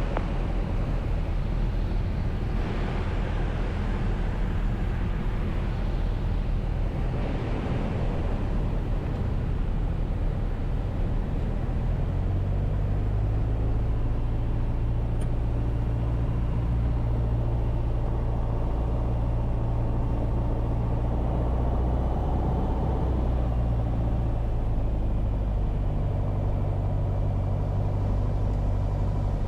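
Piper PA28-181 Archer's four-cylinder Lycoming engine and propeller running steadily on final approach and landing, mixed with rushing air noise. About twelve seconds in, a steady low hum comes up stronger and holds.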